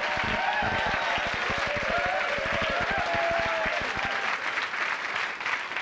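Comedy-club audience applauding and laughing after a punchline; the clapping thins out about four seconds in.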